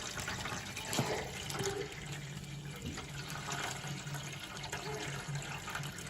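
Water running from a tap and splashing, as when toys are being washed.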